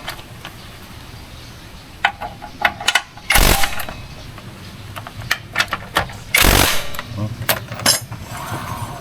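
Metal tools clinking on the scooter, with two short loud bursts from a power tool, like an impact wrench, about three seconds apart, as fasteners are driven home after the muffler is refitted.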